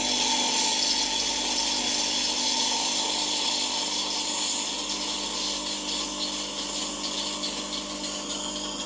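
Rancilio Silvia V3 espresso machine's steam wand wide open with the hot-water switch on: a loud, steady hiss of steam and hot water blowing into a glass jug, easing slightly toward the end, over a steady hum from the pump refilling the boiler. This is the flush that drains the superheated water and steam after steaming, bringing the boiler back down toward espresso temperature.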